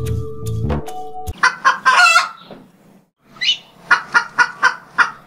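Chickens clucking in quick runs of short, repeated calls. A music tune cuts off about a second in.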